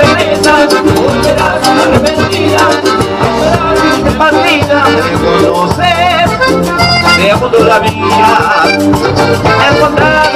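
Live cumbia band playing an instrumental passage: steady bass and percussion with shakers, keyboard lines above.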